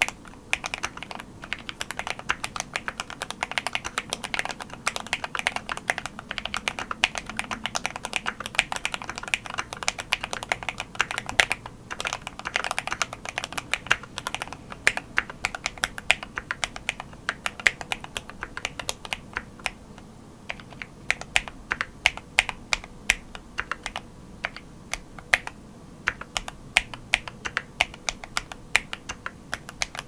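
Slow typing on a GMMK Pro mechanical keyboard fitted with lubed linear switches: a continuous run of key clacks, sparser in the last third.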